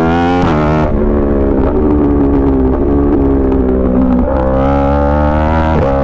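Yamaha R1 inline-four sport bike engine pulling under throttle, its revs climbing and falling sharply at gear changes about half a second in, around four seconds in and just before the end.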